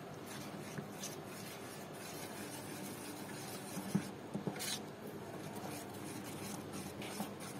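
Metal spoon stirring thin flour batter in a stainless steel bowl: a quiet, steady scraping, with a few light clicks of the spoon on the bowl about four seconds in.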